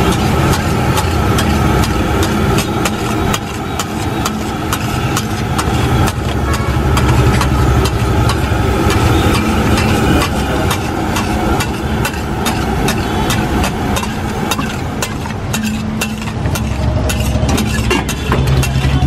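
Metal spatula clacking and scraping against a large flat pav bhaji griddle (tawa) in rapid, irregular strokes as the bhaji is mashed and stirred, over a steady rumble of street traffic and engines.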